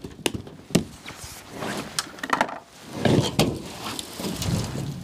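Sheet-metal siding being pried and pulled off a truck camper's rotted wooden front framing: a series of sharp knocks and clicks, with longer scraping, crumpling stretches about three seconds in and again near the end.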